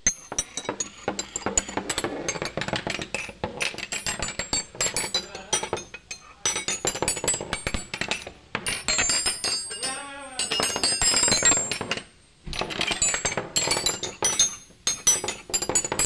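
Intro sound effects of animated machinery: rapid metallic clanking, clicking and ratcheting over music, with a wavering swept sound about ten seconds in and a brief pause near twelve seconds.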